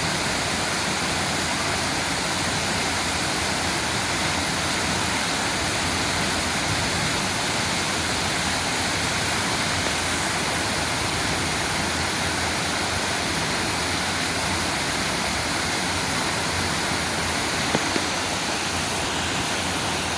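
Fifty-foot waterfall pouring, a steady, unbroken rush of falling water.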